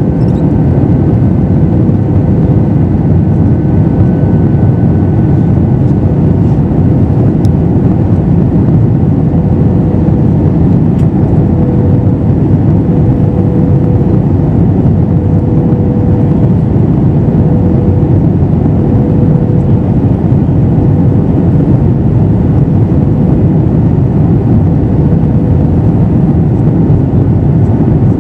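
Steady cabin noise inside an Airbus A321 with CFM56 engines: a loud, even roar of engines and airflow, with a faint steady hum throughout.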